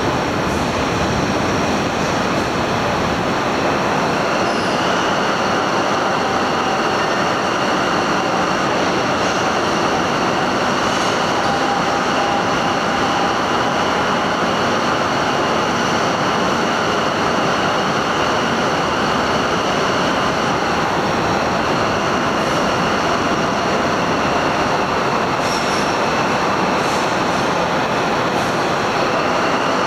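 Night train rolling slowly along the rails of a ferry's enclosed train deck: a steady rumble and hiss with a faint high whine through most of it.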